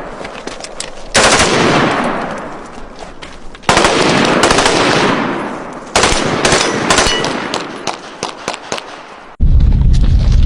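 Automatic gunfire: three bursts of rapid shots, each beginning abruptly and fading into a long echo. Near the end a loud, low rumble cuts in with more shots over it.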